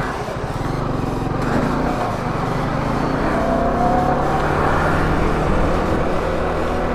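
Yamaha R15 V4's 155 cc single-cylinder engine pulling away from a standstill and accelerating, its pitch rising partway through.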